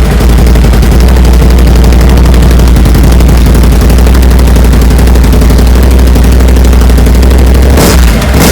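Can-Am Outlander 850's V-twin engine running through its stock exhaust, a steady low pulsing rumble recorded close enough to distort. A brief surge of noise comes near the end.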